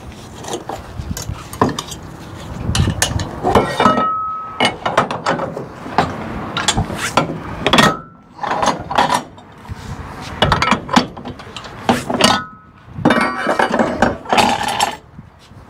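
Steel winch bar working the strap winches on a flatbed trailer's side rail as the load straps are loosened: repeated metal clanks and clicks, with a few short metallic rings.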